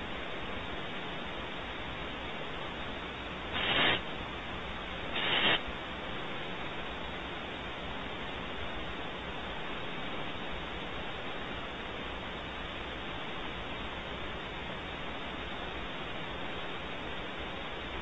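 Two short hissing calls from a barn owl, each under half a second and about a second and a half apart, a few seconds in, over a steady static hiss.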